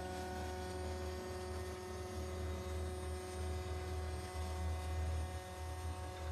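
CNC router spindle running with a steady multi-tone whine over a low, wavering hum as a small endmill cuts 304 stainless steel under flood coolant.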